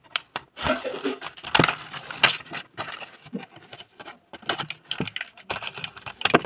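Scissors cutting a cardboard-backed plastic blister pack, with irregular crackling and crinkling of the plastic packaging as it is handled.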